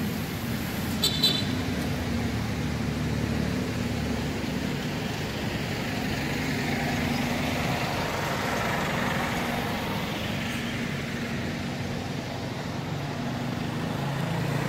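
City bus diesel engines running steadily in a depot yard, with two short high chirps about a second in.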